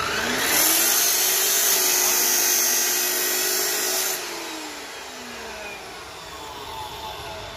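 Redstone abrasive cut-off (chop) saw cutting through steel bar: a loud grinding hiss over the motor's whine for about four seconds. The cut ends suddenly and the motor's whine falls as it winds down.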